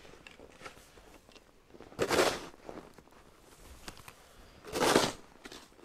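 Plastic snow shovel scraping into snow on a path and throwing it aside, two strokes almost three seconds apart.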